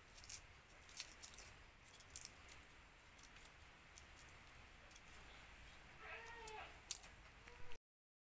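Faint clicks and scrapes of a small knife peeling shallots by hand, with a brief high-pitched cry about six seconds in.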